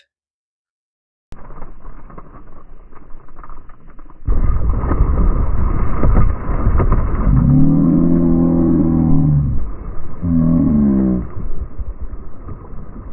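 Water splashing and churning against a fishing kayak as a tiger shark rams into it and thrashes alongside, much louder from about four seconds in. Partway through, a man gives two drawn-out shouts, the first longer than the second.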